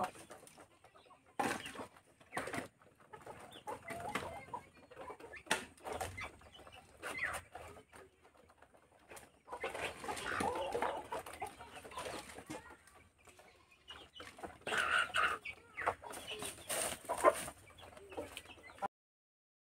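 Wooden planks and scraps knocking and clattering as they are picked up off a pile, with chickens clucking.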